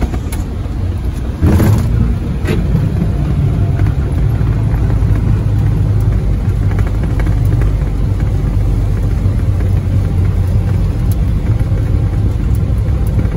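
Boeing 737 MAX landing: a sudden jump in loudness about a second and a half in as the airliner touches down, then the steady, heavy low rumble of the landing rollout, heard from inside the cockpit.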